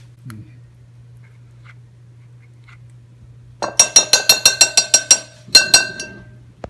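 Metal spoon rapped against the rim of a glass bowl to knock avocado off it: a quick run of about ten ringing clinks, about six a second, then one more clink a moment later.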